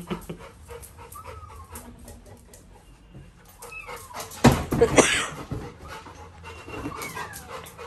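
Labrador retriever panting as it moves about, with a loud burst of thumps and scuffling about halfway through.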